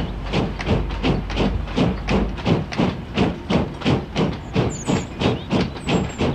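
Austerity 0-6-0 saddle-tank steam locomotive working hard under the load of a heavy coal train, its exhaust beating sharply at about three beats a second with steam hiss. A low rumble underneath dies away about two and a half seconds in.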